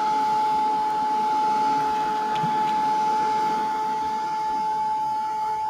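Craft heat gun running steadily, its fan motor giving one constant whine over a rush of blown air, drying a thin coat of paint.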